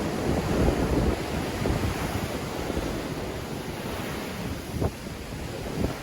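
Sea waves surging and breaking in strong wind, with gusts buffeting the microphone in a low rumble.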